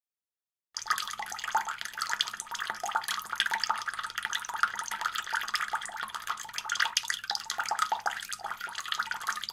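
Running water splashing steadily, full of small spattering ticks; it starts abruptly just under a second in.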